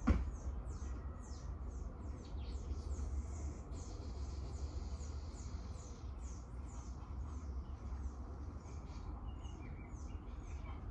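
Birds chirping: many short, quick, falling calls, one after another, over a steady low rumble, with a single knock right at the start.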